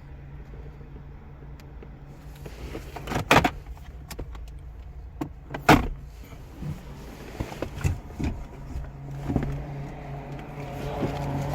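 Two loud sharp knocks about two and a half seconds apart, with several lighter clicks and knocks, over a steady low hum that grows louder near the end.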